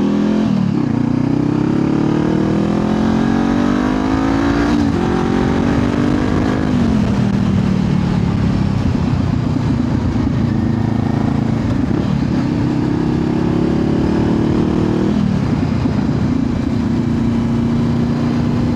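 Honda CBR500R motorcycle engine accelerating and shifting up: the engine note climbs, then drops sharply at each upshift, about four times, with steadier cruising stretches between.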